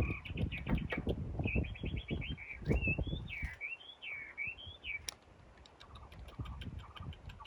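A bird singing a run of whistled notes that swoop up and down, over a few seconds of knocking and scraping handling noise that stops about halfway through.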